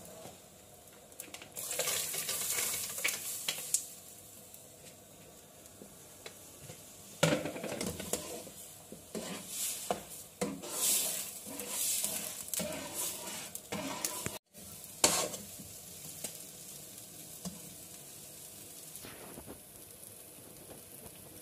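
A slotted metal spatula stirs and scrapes sooji halwa around a metal pan in spells, while the cooking semolina mixture sizzles. The sound cuts out briefly about two-thirds of the way through, and after that a fainter, steadier sizzle remains.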